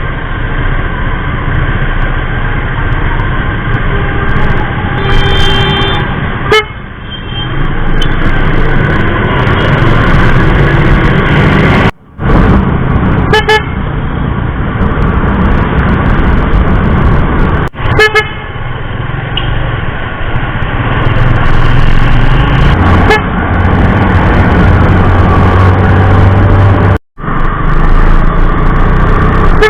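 A pair of aftermarket G-Star snail-type electric horns on a Yamaha Sight 115 Fi motorcycle, sounding together in loud, long blasts. Each blast is held for several seconds, with brief breaks about six, twelve, eighteen and twenty-seven seconds in.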